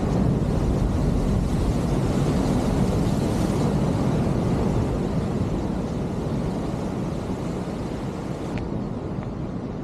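Sea surf rushing against a rocky breakwater, with wind buffeting the microphone. The rush swells about three seconds in and then slowly eases off.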